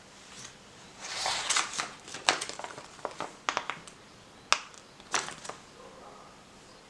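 Paper leaflets rustling as they are handled, about a second in, followed by several sharp clicks and taps.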